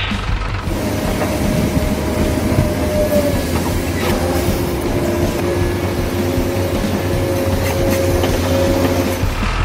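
Remote-control dump truck driving with its towed trailers: a steady whine from the electric motor and gears over a rolling, rumbling noise from the wheels on the dirt.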